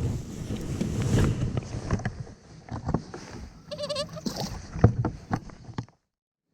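Knocks, bumps and rattles of handling gear on a fishing boat, with a louder thump about five seconds in. A short wavering high call sounds about four seconds in. The sound cuts off abruptly near the end.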